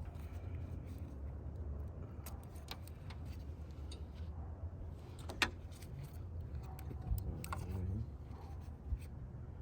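Scattered sharp clicks and light rattling as plastic electrical connectors are pried and pulled off fuel injectors, with the loudest click about five and a half seconds in, over a steady low rumble.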